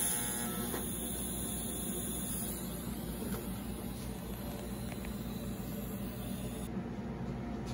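TIG welding arc buzzing for under a second as a tack weld on a steel rod ends, then a high hiss that fades away over the next several seconds, over a steady low hum.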